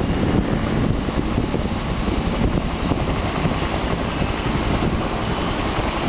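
A helicopter with a slung water bucket flying past, its steady rotor and engine noise mixed with the rush of fast river water.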